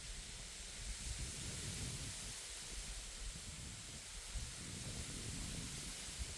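Wind blowing through reeds: a steady rustling hiss, with an uneven low rumble from gusts.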